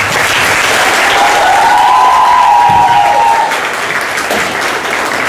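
Audience applauding in a hall after a poetry recitation, with a single held high note riding over the clapping from about a second in until it fades near the middle.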